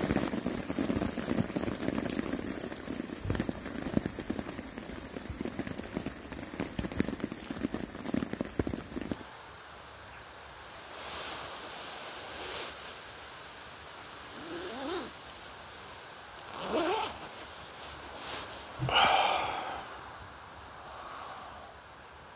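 Heavy rain pattering hard and steadily on a nylon hammock tarp overhead. It cuts off abruptly about nine seconds in, leaving a much quieter background with a few brief, fainter sounds.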